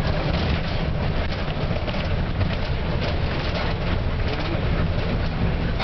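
Isuzu single-deck bus heard from inside its cabin, running downhill through tight bends: a steady low engine and road rumble with constant rattling and clicking of the bus's fittings.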